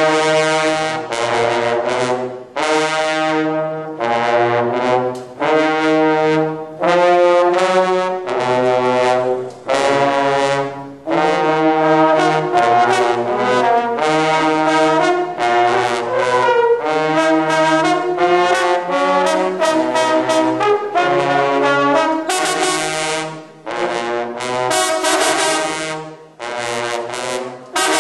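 A section of marching baritone horns playing a loud fanfare in harmony: chords played in short phrases and punched notes, with brief breaks between them.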